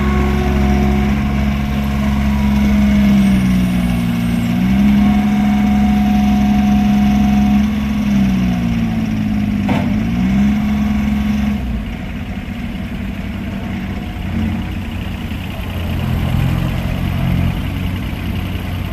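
Case 1835C skid steer loader's engine running steadily at high speed, its pitch dipping briefly twice. About twelve seconds in it drops to a lower, quieter speed.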